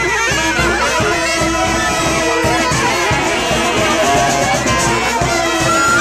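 Brass band playing live: saxophones and trombones play a bending melody over a steady beat of bass drum and cymbal.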